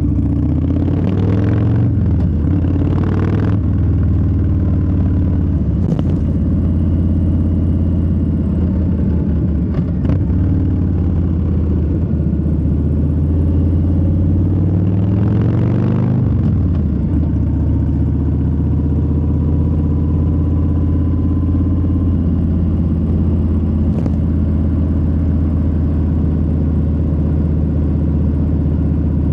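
A Harley-Davidson Low Rider S's Milwaukee-Eight 117 V-twin runs on the move. The revs climb twice, about a second in and again around the middle, and each time drop back sharply.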